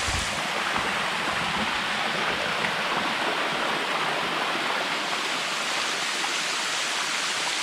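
Steady rush of water flowing down the limestone cascade of the Bua Tong waterfall, an even hiss with no change in level.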